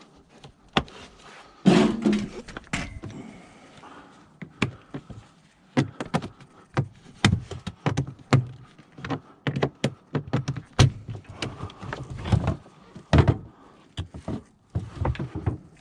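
Irregular knocks, clunks and clicks of a found item being handled and worked open by hand, with a heavy thunk about two seconds in.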